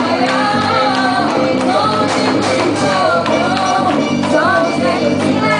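Festa junina quadrilha music: singing over instrumental accompaniment with a steady percussion beat.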